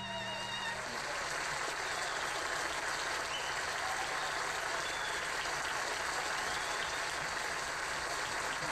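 A violin tune ends under a second in, and steady applause from an audience follows.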